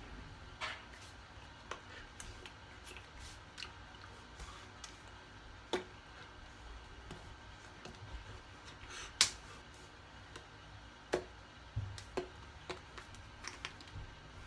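Hands tapping and slapping against each other and the body while signing, sharp irregular taps scattered over a low hum; the loudest smack comes about nine seconds in.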